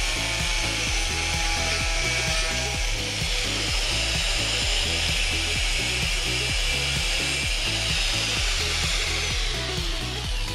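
Angle grinder's cut-off disc cutting through a steel flat bar, a steady high grinding hiss that stops near the end. Background music with a steady beat plays underneath.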